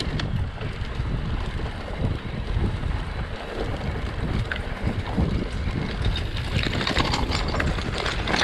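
Wind buffeting the microphone of a camera on a moving mountain bike, a steady low rumble, with the bike's tyres and frame rattling and crackling over the dirt trail, getting busier and louder in the last couple of seconds.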